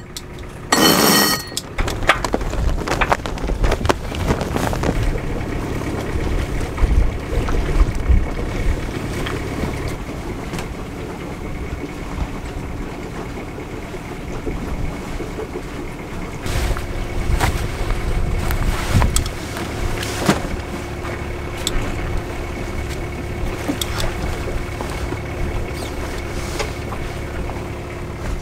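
Sailboat under way with its engine running and wind and water noise, scattered knocks and clicks from lines, sails and deck gear. Near the start there is a short, loud rattle as a sheet is hauled in on a winch.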